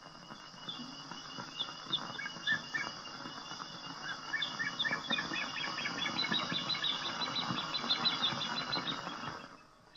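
Outdoor ambience of birds and insects: many short high chirps over a steady insect-like hiss, growing busier about halfway and fading out near the end.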